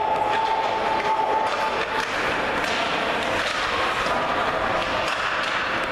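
Ice hockey game sound heard from the stands of an indoor rink: a steady rush of skates on the ice and spectators' voices, with several sharp clacks of sticks and puck.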